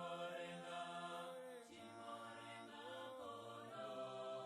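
Faint choral singing: voices chanting together in long held notes that slide slowly between pitches.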